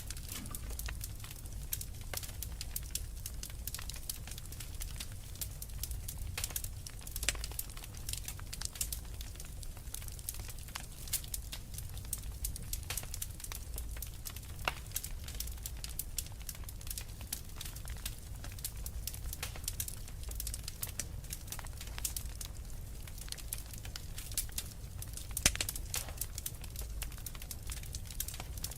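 Fire crackling in a fireplace: a dense, irregular stream of small pops and snaps over a low steady rumble, with one louder pop near the end.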